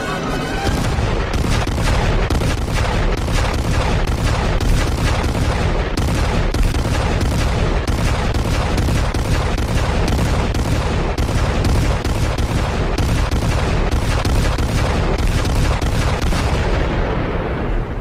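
A house blowing up after gasoline is lit: a long rumbling explosion full of rapid cracks and bangs, which dies away near the end.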